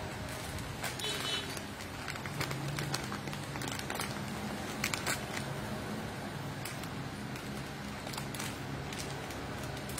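Scattered small clicks and rustles of jewellery and its packaging being handled, a few sharper ones around the middle, over a steady low hum.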